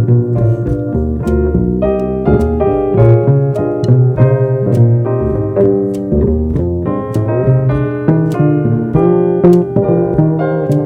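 Live jazz piano trio playing: keyboard chords and runs up front over a walking bass line, with light drum and cymbal strokes.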